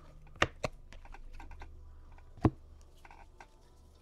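A stack of baseball cards being flipped through by hand: a run of light clicks and taps as the card edges snap past one another, with three sharper clicks among them.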